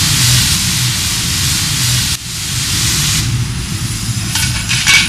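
Self-serve car wash pressure-washer wand spraying water with a loud hiss. The spray cuts off about two seconds in and comes back more weakly for about a second, over a low steady rumble.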